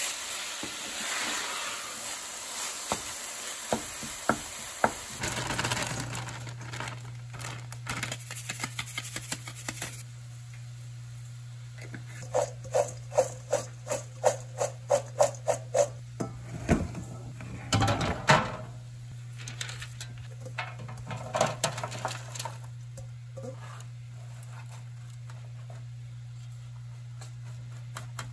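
Ground beef and onions sizzling in a stainless steel pan, with wooden-spoon clicks. After a cut, a steady low hum with scattered kitchen clatter sets in. Near the middle, shredded Brussels sprouts are tossed in a stainless steel mixing bowl, making about two or three rattling, ringing strikes a second for a few seconds.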